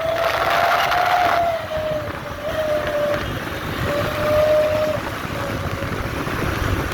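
Road and wind noise of a moving vehicle, with a thin steady whine that drifts slightly in pitch and drops out a few times.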